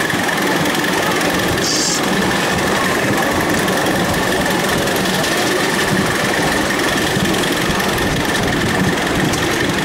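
Miniature steam railway train running along the track, heard from a passenger car: a steady rattling rumble with a constant high whine over it. A short hiss about two seconds in.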